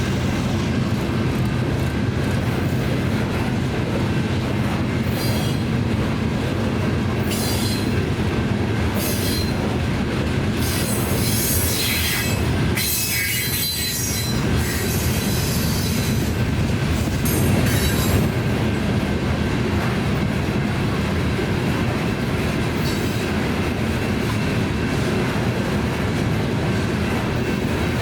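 Cars of a BNSF rock train rolling past with a steady rumble of steel wheels on rail. Intermittent high wheel squeals and screeches come and go through the middle stretch.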